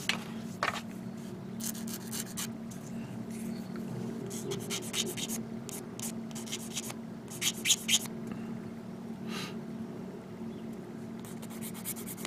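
Plastic model kit parts being worked by hand: short bouts of scratching and rubbing on plastic, with a few sharp clicks a little before the eight-second mark.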